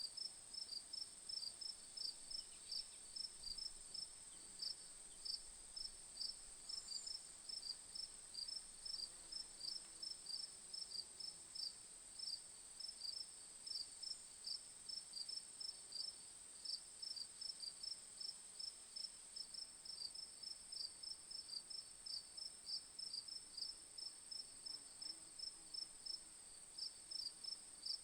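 Crickets chirping: short, high chirps repeating a few times a second over a steady, higher-pitched continuous trill.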